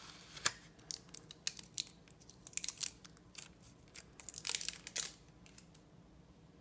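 Clear adhesive tape being peeled off a paper card to free a taped-down coin, crackling and ripping in several short spells, with the paper rustling. It goes quiet about five and a half seconds in.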